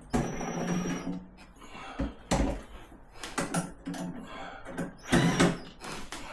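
Hands-on work inside a fridge: knocks and clunks of the ice maker and tools being handled, with a brief whir of a small power driver for about a second at the start.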